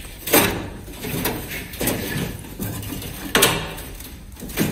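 Sharp metal clunks and knocks, about five in a few seconds, as the seized engine of a 1949 Chevrolet Fleetline is forced by hand at the fan and pulley. The engine is still stuck and does not turn.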